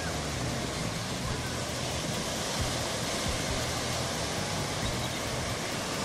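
Steady rushing noise of wind and sea water, even throughout, with no distinct calls or knocks.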